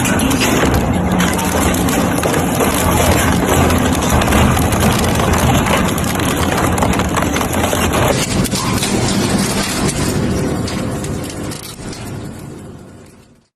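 Hammer-crushing machinery running loudly: a steady engine drone under a dense clatter of crushing and knocking. It fades away over the last few seconds.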